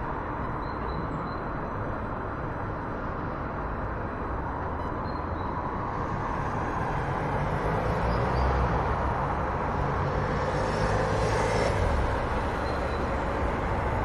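City street ambience: a steady rumble of traffic, swelling louder from about halfway through as a vehicle passes close, then easing a little near the end.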